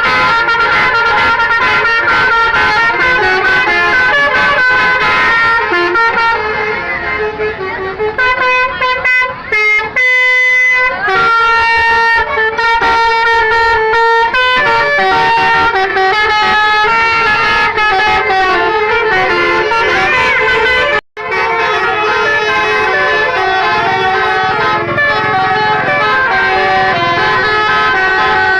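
Telolet multi-tone bus horns playing short melodic tunes over and over, several buses sounding against each other. The sound cuts out for an instant about three-quarters of the way through.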